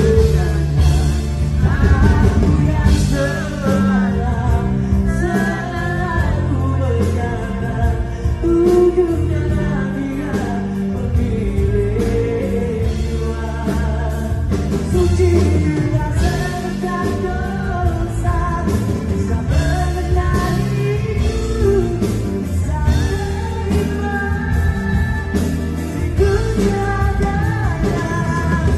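A male lead singer performing a Malay pop-rock ballad live with a band, keyboards and drums under his voice.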